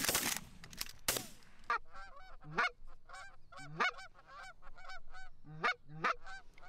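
A shotgun shot at the start and another about a second in, then rapid, repeated Canada goose honks, two or three a second, some swinging up from a low note into the high honk.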